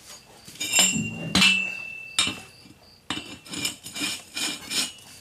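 Two metallic clanks of 2-inch black steel pipe about a second in, the second leaving a short ring. Then the pipe threads grate in rhythmic strokes, about three a second, as a length of pipe is screwed into a threaded tee by hand.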